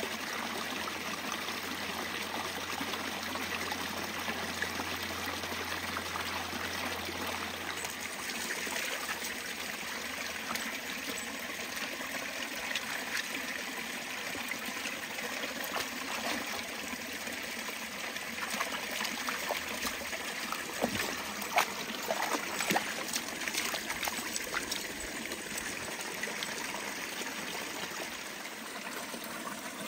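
Small forest creek trickling and splashing over rocks in a steady rush of water, with a few sharp clicks about two-thirds of the way through.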